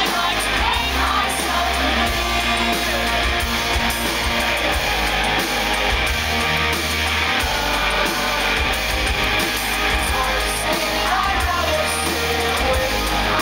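Live pop-rock band playing through a concert PA, with guitar and bass, and a male lead vocal singing in places.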